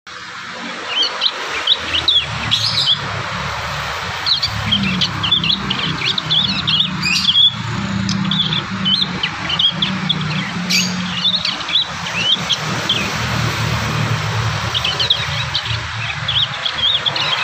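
Young prenjak (prinia) birds giving quick, scattered chirps and twittering phrases, juveniles still practising and assembling their song. A steady low hum runs underneath.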